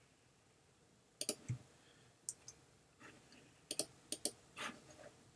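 Computer mouse clicks: two sharp clicks about a second in, a couple of faint ones, then four quick clicks in a row around four seconds in.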